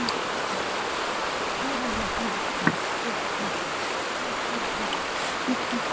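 Steady rush of a shallow river running over stones, with one sharp click about two and a half seconds in.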